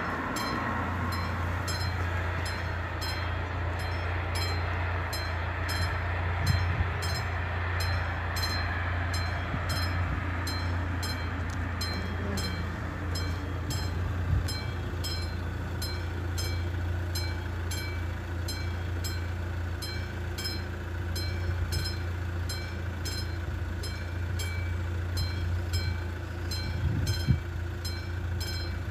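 Railway level crossing's electronic warning bell ringing in an even rhythm, about two strokes a second, as the crossing closes for an approaching train. A steady low rumble runs underneath.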